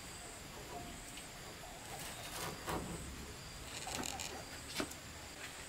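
Brief rustles and a few soft knocks as a hanging rope fish net is handled and let go, over a faint steady high-pitched whine in the background.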